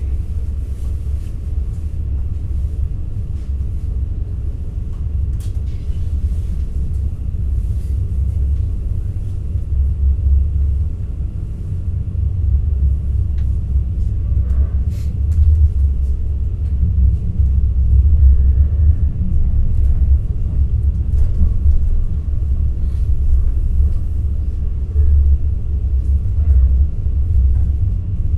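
Steady low rumble inside a moving NS ICNG electric intercity train, heard from the passenger cabin, growing a little louder in the second half, with a few faint clicks.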